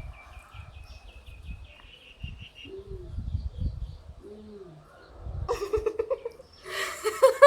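Faint bird chirping, a quick run of high notes, and two low dove-like coos. Then a person starts giggling about five and a half seconds in, getting loud near the end.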